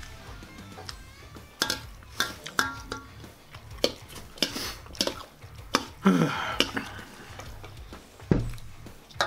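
Metal fork clinking and scraping against a large stainless steel mixing bowl in about ten irregular knocks. About six seconds in there is a longer scrape that falls in pitch. Background music runs underneath.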